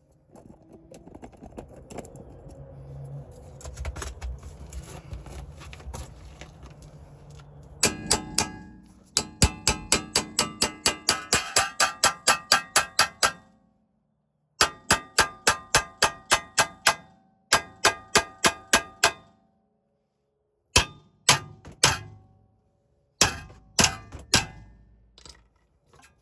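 A hammer striking steel over and over on a car's front suspension, trying to break the lower ball joint loose from the steering knuckle: rapid runs of ringing metallic blows, about four a second, in several bursts with short pauses. The joint is not budging under this hammer. The first few seconds hold lower clattering and handling noise before the hammering starts.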